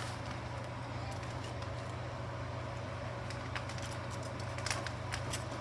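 A steady low hum with an even background noise, with a few faint light clicks about two thirds of the way in.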